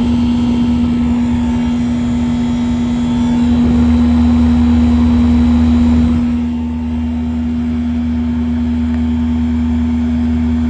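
1988 Lennox HP16 heat pump outdoor unit running in cooling mode, its compressor and condenser fan giving a steady hum over a low rumble. The rumble swells about four seconds in and eases a couple of seconds later. The owner judges the unit to be low on refrigerant.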